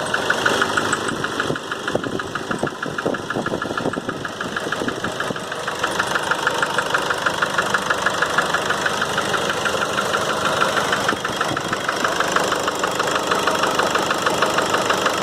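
Nissan Frontier 2.5 four-cylinder turbodiesel running at idle with a rapid, steady light knock from the engine. Another shop condemned the bottom end, taking it for a connecting-rod knock, but the knock does not change when the engine is revved and released, which the mechanic takes to rule out a rod.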